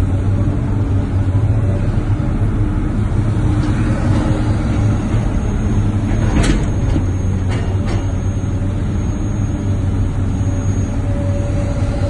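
Heavy diesel engine running steadily with a low hum. About halfway through come two or three short, sharp knocks.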